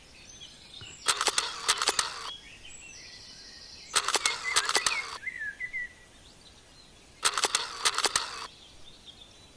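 Camera shutter sound effect, three times about three seconds apart, each a quick run of sharp clicks, over faint outdoor ambience with bird chirps.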